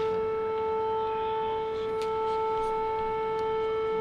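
Air-raid siren sounding an alert, holding one steady pitch.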